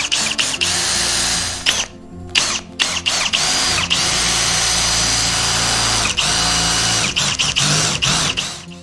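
Cordless drill boring into the steel bearing housing of a Ford steering column, drilling out its spot welds. It runs in several runs with short breaks about two and six seconds in, and stops near the end.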